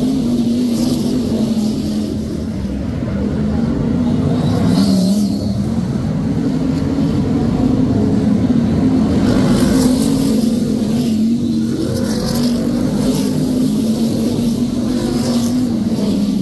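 A pack of BriSCA F1 stock cars racing, their big V8 engines running together without a break. Cars swell louder as they pass close, about five times.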